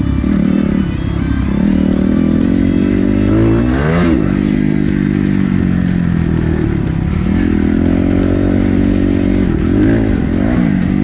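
Motorcycle engine running under way, its pitch rising and falling as it revs through the gears, most sharply about four seconds in and again near the end.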